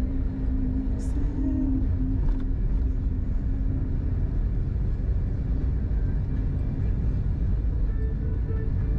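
Steady low rumble of a car driving slowly, its road and engine noise heard from inside the cabin.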